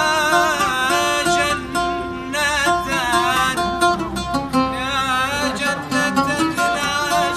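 Arabic tarab music: an oud plucking a melody, with a wavering, ornamented melodic line over it.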